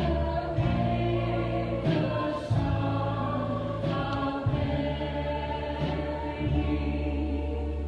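A woman singing into a handheld microphone over electronic keyboard accompaniment. Sustained low bass notes change chord every second or two beneath the voice.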